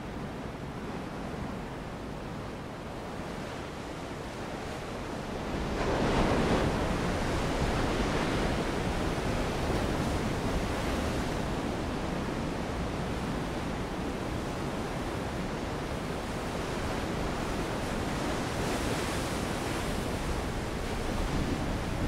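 Ocean surf breaking on a beach, a steady wash of water noise. About six seconds in a wave breaks and the surf gets louder, staying so from then on.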